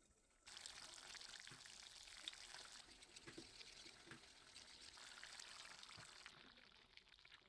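Faint splashing of milky rice water as a spoon stirs it in a plastic bowl, then the liquid poured into a simmering curry in a wok; the sound changes near the end as the pouring begins.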